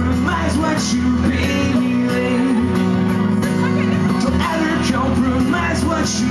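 Live acoustic rock song: an acoustic guitar strummed steadily with singing over it, unbroken.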